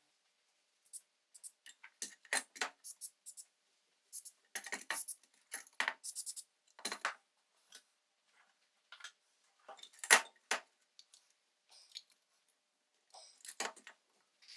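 Metal parts being handled on a workbench: a string of separate clinks and taps, with one louder knock about ten seconds in.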